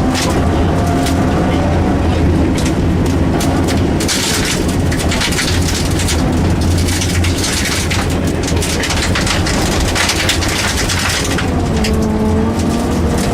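Rally car engine running hard, heard from inside the cabin. Loose stones spray and rattle against the car's underside, most densely through the middle of the stretch.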